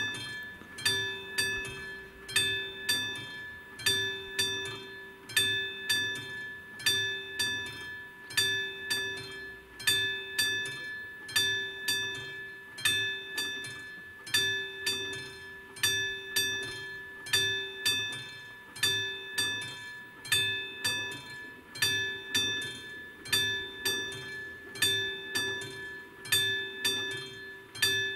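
Level crossing warning bell ringing in even, repeated strokes, each stroke a bright ringing tone that dies away before the next; it is the warning that sounds with the flashing red lights while a train approaches.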